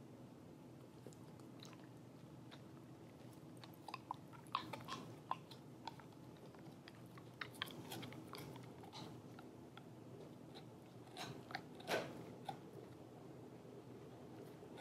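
Dog chewing a rawhide strip: irregular crunching and clicking bites, few at first and busier from about four seconds in, with the loudest crunch near the twelve-second mark.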